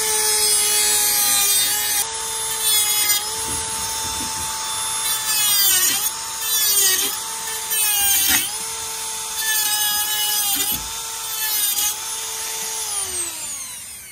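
Dremel rotary tool running at high speed, grinding through the wire-mesh funnel of a minnow trap to widen its entrance hole. Its steady whine sags in pitch each time the bit bites into the wire, several times over, and it winds down near the end.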